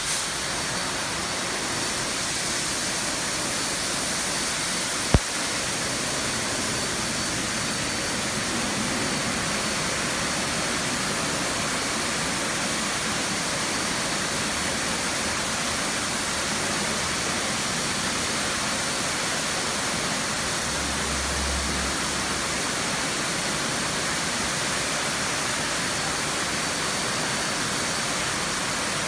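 Automated touchless truck wash spray arches spraying water, a steady loud hiss of spray that does not change. A single sharp click comes about five seconds in, and a brief low rumble around twenty seconds in.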